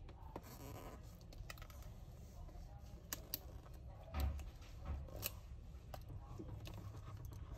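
Faint handling noises as fingers peel sticky tape and work the display cable connector on the back of a laptop LCD panel: scattered small clicks and scratching, with two soft thumps about four and five seconds in.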